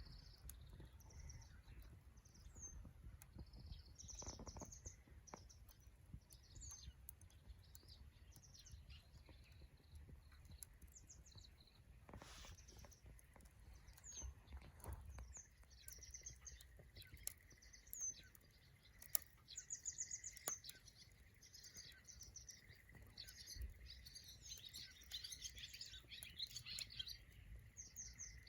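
Small birds chirping in many short, quick, high calls, busiest near the end, with scattered faint sharp clicks and a faint steady high tone from about halfway.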